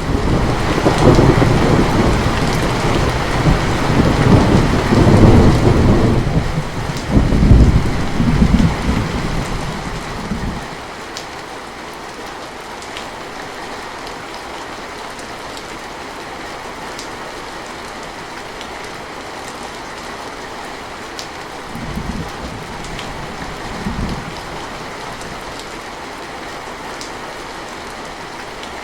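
Steady rain falling, with a long roll of thunder from the start that rumbles for about ten seconds, swelling several times before it dies away. Two short low rumbles of thunder come near the end.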